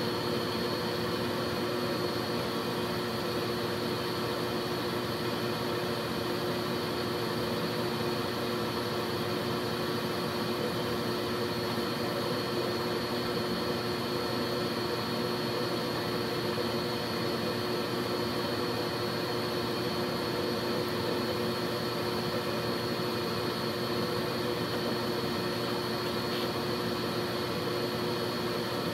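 Aeon Mira 9 CO2 laser engraver running while it engraves: a steady machine whir with a steady low hum and a faint high whine through it.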